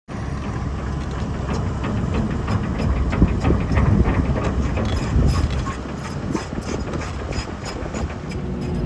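Doosan 225 excavator running under load, with irregular clanks and knocks over its steady engine rumble.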